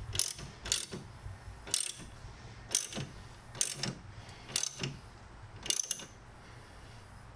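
Hand ratchet tightening the strut tower bar's mounting bolts: a short burst of ratchet clicks on each back-swing, about once a second, stopping about six seconds in.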